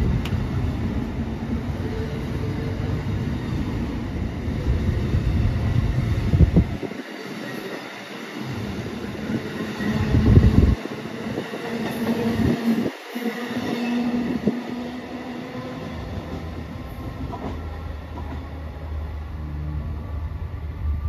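Amtrak Amfleet passenger coaches passing at speed: a steady, loud rush of wheels on rail and moving air. From about seven seconds in, the low rumble turns uneven, dropping out and coming back, as the rest of the train goes by and clears the track.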